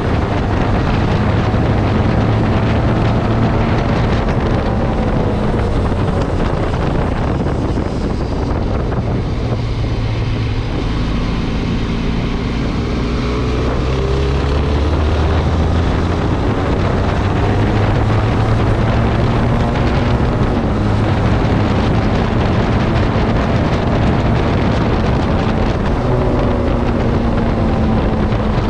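Benelli TRK 502's parallel-twin engine through its stock exhaust, running at road speed as heard onboard, with wind noise on the microphone. About eight seconds in the engine note drops lower and quieter, then climbs again from about sixteen seconds.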